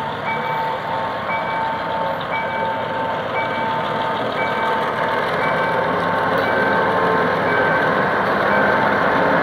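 Level-crossing warning signal beeping about once a second, over the diesel engine of a GM G22W diesel-electric locomotive pulling a passenger train through the crossing. The locomotive grows louder as it draws close.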